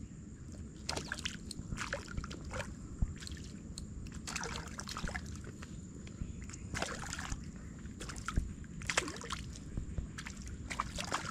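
Water splashing and sloshing in irregular bursts as a hooked fish thrashes at the surface in the shallows, close to the bank.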